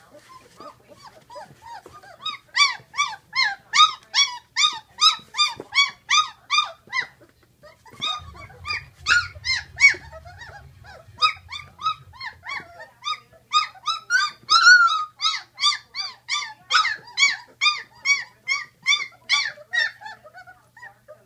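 Litter of 16-day-old Great Dane puppies whining and crying: quick, repeated high-pitched squeals about three a second, several pups at once, starting about two seconds in with a short break near seven seconds.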